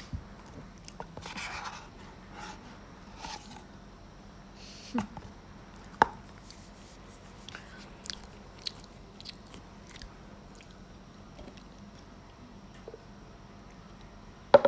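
Close-miked eating sounds: chewing and small scattered clicks and taps, with a sharp knock about six seconds in and another just before the end.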